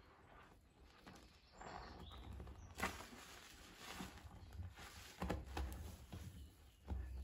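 Hands squeezing and kneading foam-soaked sponges in a basin of soapy water: soft wet squelching with liquid dripping back into the foam, and a sharp squelch about three seconds in, with more squelches later.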